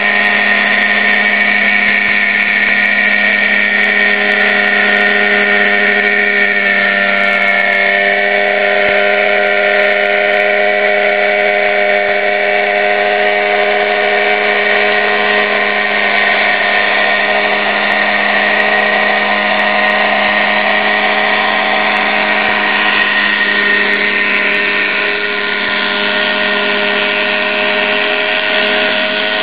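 Tiger 50 nitro RC helicopter's glow engine and rotor running steadily in a low hover, a high buzzing whine whose pitch wavers slightly as the throttle and collective are worked.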